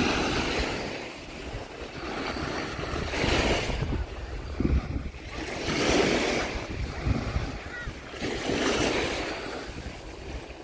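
Small Baltic Sea waves breaking and washing up a sandy beach, the hiss of surf swelling and fading about every three seconds. Wind rumbles on the microphone underneath.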